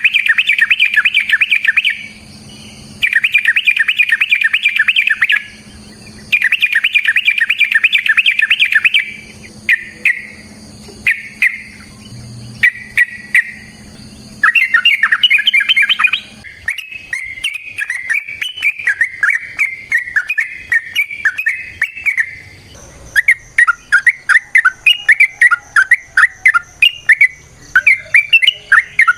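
Yellow-vented bulbul singing loudly. First come several bursts of rapid chattering notes with short gaps between them, then shorter phrases, then an unbroken varied warble about halfway through. Near the end it turns to quick repeated single notes.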